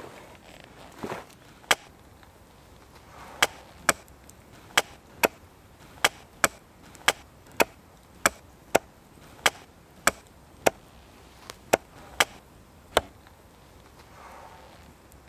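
An axe chopping a green-wood stake on a tree-stump chopping block to shape its end. About eighteen sharp, separate strikes come at an uneven pace, up to about two a second, and stop shortly before the end.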